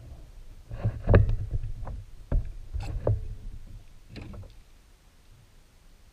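Clicks and knocks of a cast net being gathered and loaded on a kayak, its lead weights clacking and bumping on the plastic hull with low thuds. It starts about a second in, is loudest in the first two seconds and dies away after about four.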